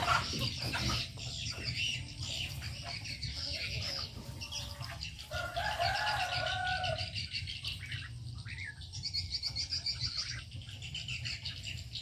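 Many birds chirping and calling together in an aviary, with one longer, lower call about halfway through.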